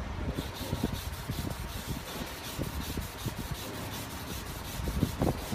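Hand wet-sanding of cured polyester body filler on a car body panel with a foam sanding block and wet sandpaper: a continuous abrasive rubbing made of quick repeated strokes.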